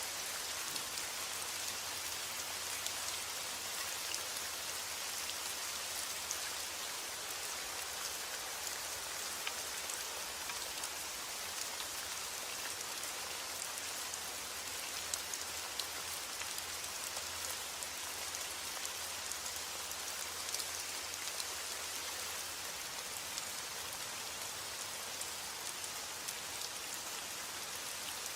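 Heavy rain falling steadily: a dense, even hiss with many individual drops ticking through it.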